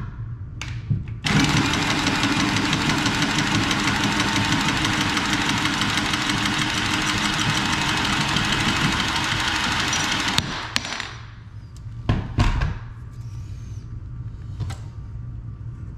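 Cordless copper tubing cutter spinning around a copper supply pipe, running steadily for about nine seconds and stopping suddenly as it cuts through. A sharp click and a couple of knocks follow as the tool and the cut pipe are handled.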